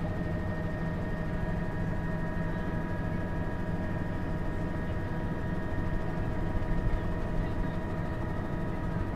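Helicopter in flight: steady rotor and engine noise, a dense low rumble with a steady high whine over it.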